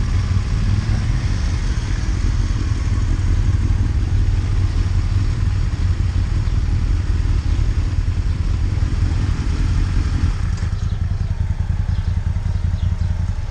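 Large touring motorcycle engine idling steadily, a low even rumble.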